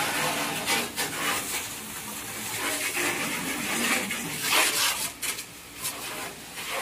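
Water jet from a hose spraying against the side of a truck, a hissing splash that swells and fades several times.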